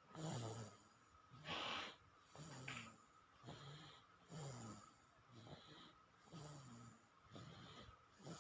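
A sleeping baby snoring faintly: quick, regular breaths about one a second, each carrying a low snore.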